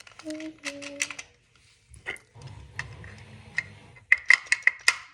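Hard plastic parts of a toy clicking and knocking as they are handled, with a quick run of sharp clicks near the end.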